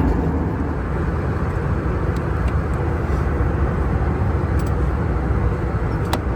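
Steady low rumble inside a moving vehicle, with a few faint clicks.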